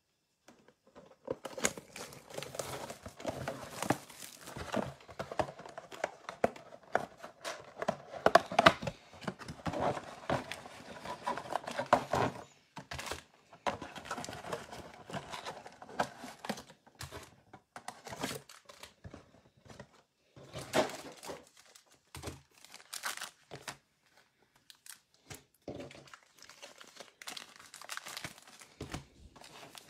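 Plastic shrink wrap crinkling and tearing as a Panini Mosaic baseball mega box is unwrapped, dense for roughly the first twelve seconds. After that come sparser rustles and taps as the box is opened and the card packs are handled.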